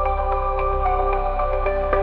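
Ambient synth music: sustained dreamy synth pads and held chords over a steady low bass drone.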